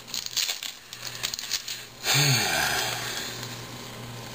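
Foil card-pack wrappers crinkling and baseball cards rustling as they are handled and shuffled. About two seconds in, a short vocal sound that falls in pitch, after which only a steady hiss remains.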